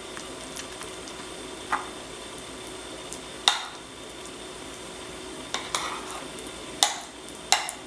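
A spoon spreading beans over the top tostada layer in a bowl: soft scraping with about six short clicks and taps scattered through it.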